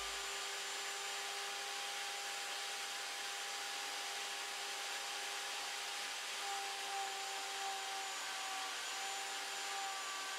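Small electric router running steadily with a whining tone, its bit cutting a decorative groove into a turned wooden bangle mounted on the lathe.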